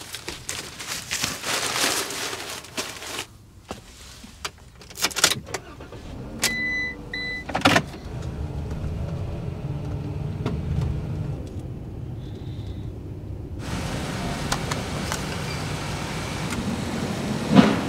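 Fabric window shades rustling as they are pulled down inside a van, with scattered clicks and knocks. About seven seconds in come two short electronic beeps and a sharp click, then a Ram ProMaster van's engine runs with a steady low hum as it drives.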